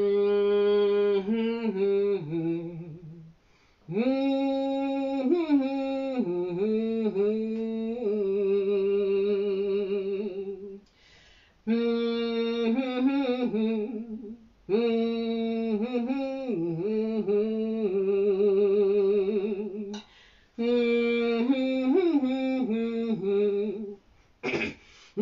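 Kazoo playing a wordless blues melody in phrases of a few seconds, with short breaks between them and a wavering vibrato on the held notes.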